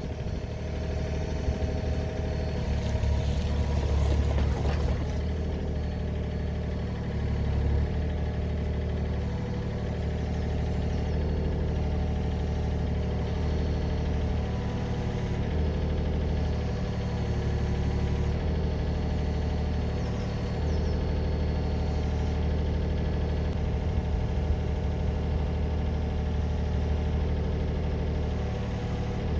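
Yanmar B37 mini excavator's diesel engine running, its note and loudness shifting every few seconds as the hydraulics load it while the arm and tiltrotator move.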